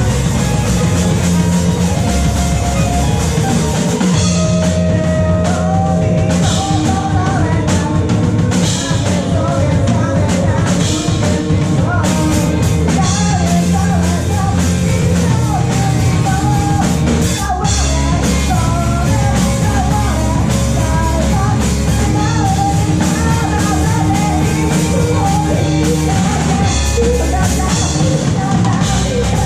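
A live rock band playing a fast punk-rock song with drums and guitars, with a sung lead vocal for much of the passage.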